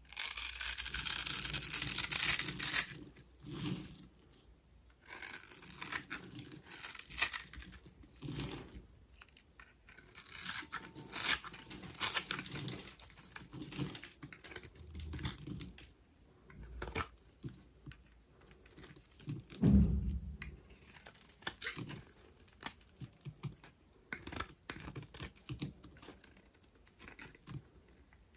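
A knife carving dry bar soap into cubes: crunchy scraping and crackling cuts. The longest and loudest cut comes in the first three seconds, followed by many shorter cuts and crumbles, with one duller knock about twenty seconds in.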